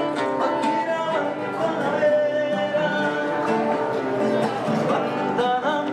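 Acoustic guitar music with singing.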